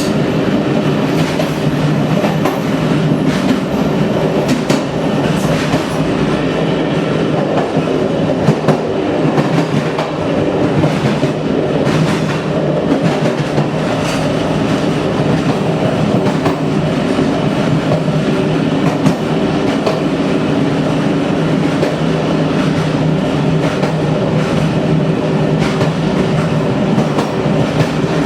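Train running over badly worn track: a loud, steady rumble of wheels on rail, with a sharp knock now and then as the wheels strike rail joints.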